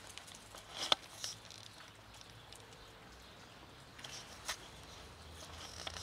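A few footsteps on rubble-strewn ground: sharp single steps or snaps about a second in, again shortly after, and once more near the end, over a faint outdoor background.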